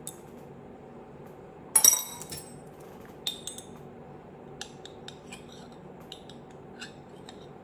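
Kitchen utensils and dishware clinking: one loud clatter about two seconds in, then several lighter taps and clicks of metal against glass and crockery.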